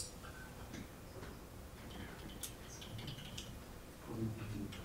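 Faint scattered clicks and taps of a computer keyboard and mouse as a sign-in page is filled in, over quiet room tone, with a faint low murmur near the end.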